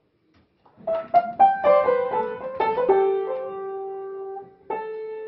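A cat pawing the keys of an upright piano: a quick, irregular run of single notes and clusters over about two seconds, a low note left ringing, then one more cluster struck near the end.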